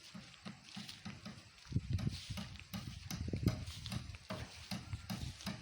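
A quick, even run of soft low thumps, about five a second, loudest from about two to four seconds in, with a few faint clicks.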